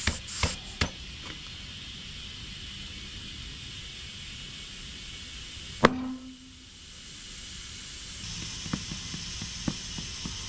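Compressed air hissing steadily from an air hose into a tire being inflated on its wheel, with a few clicks in the first second. About six seconds in comes one sharp pop, the hiss drops away, then builds again near the end.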